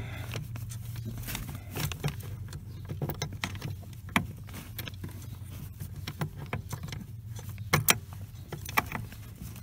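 Scattered light metallic clicks and taps of hands working a nut onto a bolt on a pickup's clutch pedal bracket, over a steady low hum.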